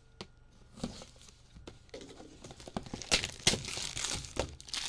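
Plastic wrapping on trading cards crinkling and tearing as it is ripped open, with a few clicks first and the loudest run of crackling in the second half.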